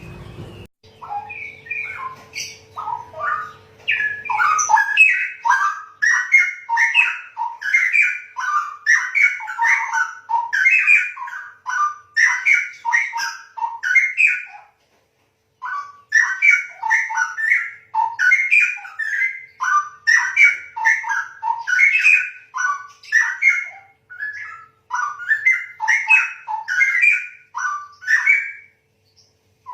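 Male straw-headed bulbul (cucak rowo) singing loudly: a long run of rich, rapid warbling phrases, broken off briefly about halfway through.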